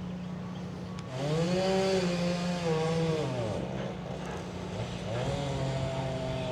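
Small two-stroke chainsaw engine revving up, holding and dropping back, then revving again near the end, over a steady motor hum.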